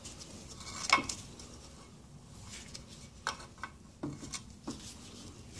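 Scattered light metal clinks and knocks, the loudest about a second in, from handling an outboard's aluminium gearcase as the pinion nut and pinion gear come out of it.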